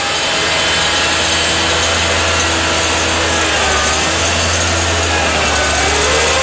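Manitowoc 14000 crawler crane's diesel engine running steadily under load, with a whine from its machinery that glides up and down in pitch over the second half as the grapple is worked.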